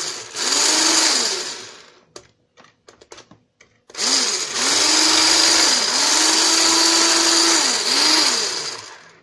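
Maxwell stick blender with a whisk attachment beating raw eggs in a plastic bowl. The motor runs for about two seconds and winds down, a few light knocks follow, and then it runs again for about five seconds, its pitch dipping and rising, before it stops near the end.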